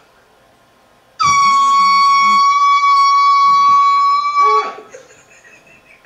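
Air horn blasting one long steady note for about three seconds. It starts suddenly about a second in and cuts off abruptly.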